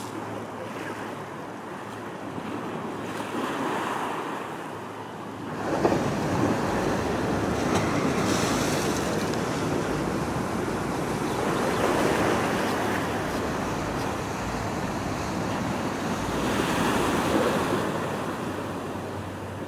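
Ocean surf washing against the shore, swelling and easing every few seconds and louder from about six seconds in, with wind on the microphone.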